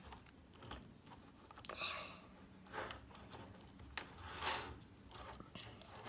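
Lego plastic parts being handled and fitted together: faint scattered clicks and a few short rubbing scrapes.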